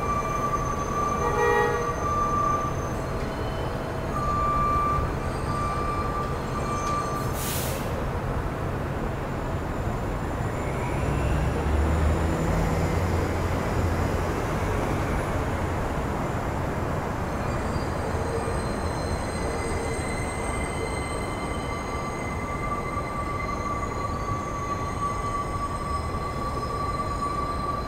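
Vintage New York City subway train rolling slowly through a rail yard: a steady rumble of wheels on track, with a thin, high wheel squeal that comes and goes. There is a sharp click about seven and a half seconds in and a heavier low rumble around twelve seconds.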